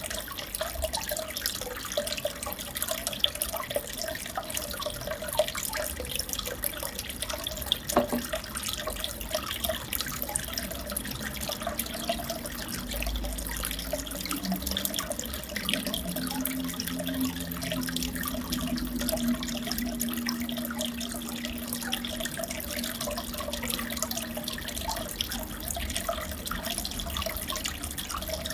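Aquarium water trickling and splashing steadily, full of tiny drips and bubbles. A faint low hum comes in about twelve seconds in and fades a few seconds before the end.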